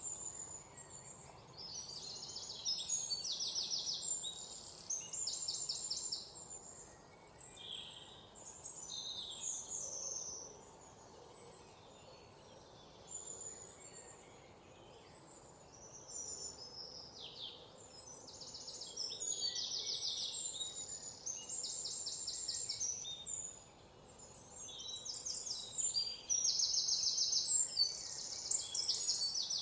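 Several small songbirds chirping, with high rapid trills and short chirps overlapping in bursts that swell and fade every few seconds, over a faint steady hiss.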